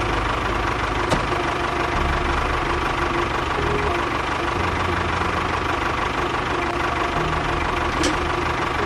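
A small engine running steadily with a knocking, idling character; a short click comes about a second in and another near the end.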